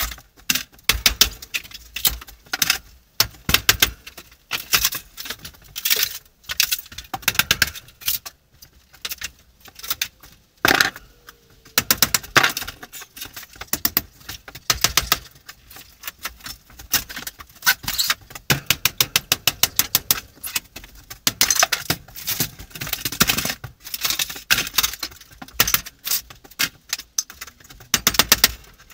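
Fast, irregular clattering, knocking and clinking as the interior wall paneling and trim of an old camper are pried and torn out.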